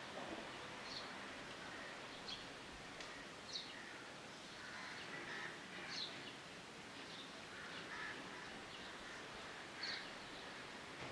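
Faint outdoor ambience with birds chirping now and then: short high chirps every couple of seconds over a steady low hiss.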